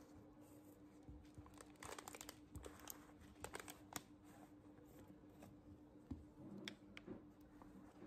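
Faint crinkling and tearing of a snack canister's packaging seal being worked open by hand, in short crackly clusters, densest about two to four seconds in, with a few more sharp crackles near the end.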